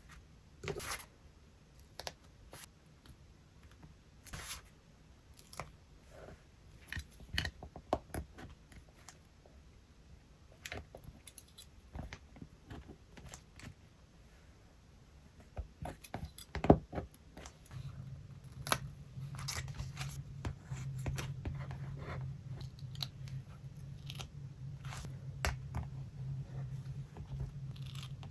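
Scissors cutting paper and paper being handled: irregular snips, clicks and rustles, with one sharper click a little past halfway. A steady low hum comes in about two-thirds of the way through.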